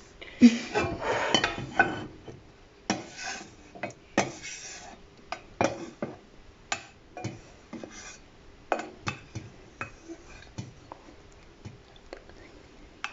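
A spatula scraping and clinking against a pan as noodles are scooped out, in irregular strokes that come thickest in the first two seconds.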